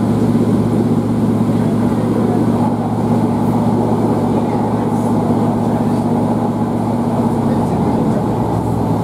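Class 153 diesel railcar in motion, heard inside the passenger saloon: the steady hum of its underfloor Cummins six-cylinder diesel engine over the rumble of the running train. The higher part of the engine note drops away about eight seconds in.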